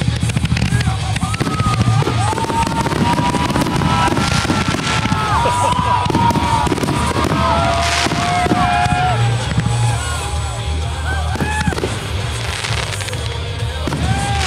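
Aerial fireworks bursting and crackling in quick succession, with music playing underneath.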